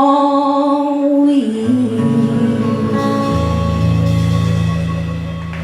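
Live acoustic folk song coming to its end: a last sung note held for about a second and a half, then the closing chord on guitar and strings sustained and ringing out.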